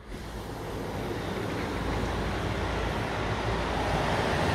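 Steady rushing of a mountain river, growing louder as the balcony door is opened onto it.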